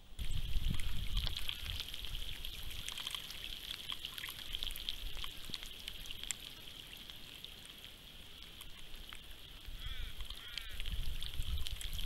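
Wind gusting on a trail camera's microphone beside a full dam, the rumble strongest at the start and again near the end, over a steady hiss with many small water ticks and trickles. A few quick chirps sound about ten seconds in.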